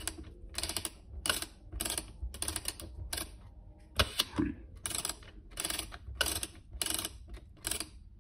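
Film-advance knob of a Wollensak stereo camera being turned in short strokes, its ratchet clicking about two to three times a second, with a sharper single click about four seconds in. The film is being wound on and the shutter cocked after loading.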